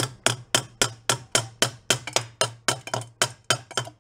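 Ball-peen hammer tapping quickly on the fresh welds of a Jawa motorcycle's metal headlight bucket, about four light strikes a second, each with a short metallic ring; the tapping tests whether the welds hold and works the patched metal down. The tapping stops at the very end.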